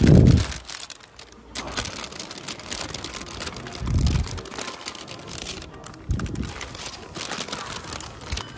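Clear cellophane sleeves around potted orchids crinkling and rustling as a hand pushes between them to pull one plant out. There is a dull bump at the start and two softer ones later.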